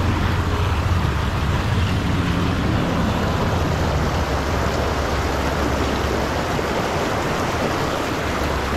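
Steady rushing noise of wind buffeting the microphone, with a low rumble that eases a little after the first few seconds.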